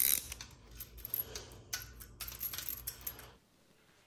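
A ratchet and extension turning out the tube tools seated in the bare aluminium engine case, an irregular run of sharp metallic clicks and clinks. It cuts off suddenly about three and a half seconds in.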